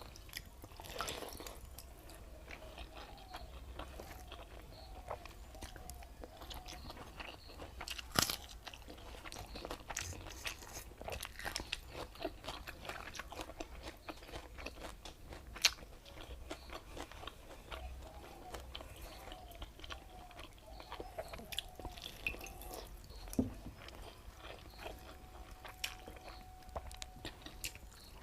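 A person eating close to the microphone: crunching bites and chewing of pakhala (watered rice) with saag and raw onion. Two sharp crunches stand out, a little after 8 seconds in and again around 15 seconds in.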